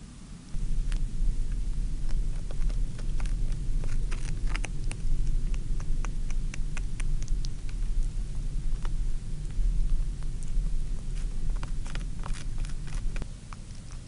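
North American porcupine moving and feeding in hawthorn branches: many scattered sharp clicks and crackles of twigs and chewing. Under them, a steady low rumble starts suddenly about half a second in and drops away near the end.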